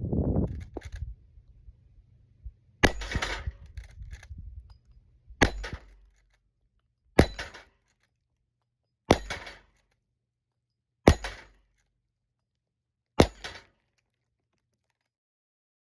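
Six sharp gunshots, about two seconds apart, from a Rossi R92 lever-action rifle in .45 Colt, each with a short ringing tail.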